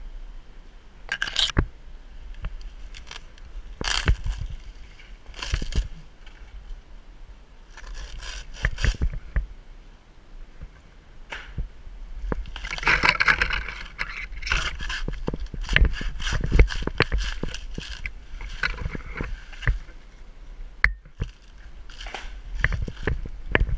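Dry cocos palm frond bases and trunk fibre crackling and scraping in irregular bursts as gloved hands pull and tear them off, with scattered sharp snaps and a constant low rumble underneath.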